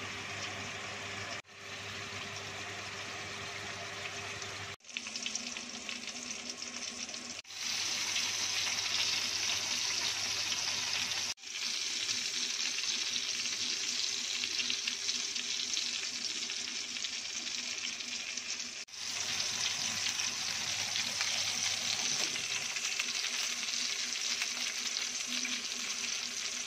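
Ghee and fat sizzling in an oven roasting tray under stuffed pigeons as they brown, a steady hiss over a low hum. It breaks off briefly several times and is louder after about eight seconds.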